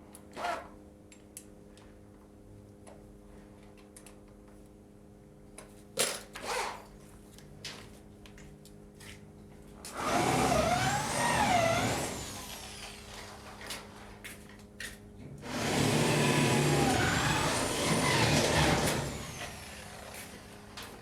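Handheld electric power tool running in two bursts of a few seconds each, its motor pitch wavering up and down, with a few short knocks before them.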